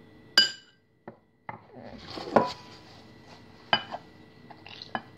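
Several sharp clinks of dishes and cutlery, the first ringing briefly like glass or crockery.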